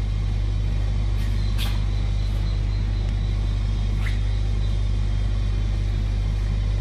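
Steady low machine hum, as of a motor running, with a light click about a second and a half in and another about four seconds in.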